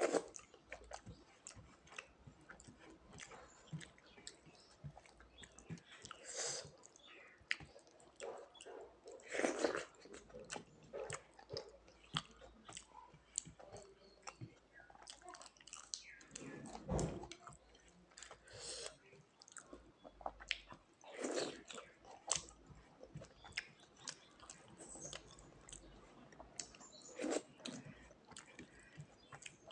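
A person chewing and biting food up close, with wet mouth sounds and occasional crunches, while eating rice with fish, bottle gourd and fried potato and eggplant. There are irregular small smacks and clicks, with a few louder bites scattered through.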